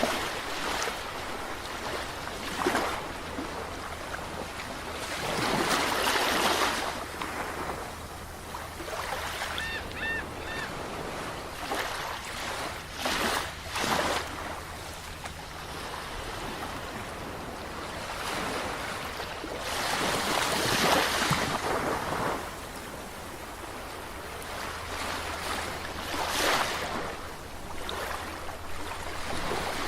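Ocean waves breaking and washing up a shore in surges every few seconds, the loudest about twenty seconds in. About ten seconds in, three short high chirps.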